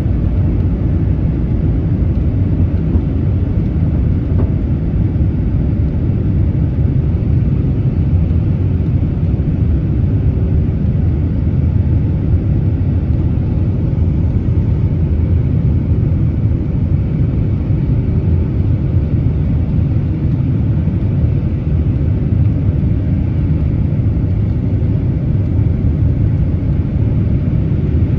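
Boeing 767-300ER's jet engines and airflow heard from inside the passenger cabin during takeoff: a loud, steady, deep rumble that holds even throughout.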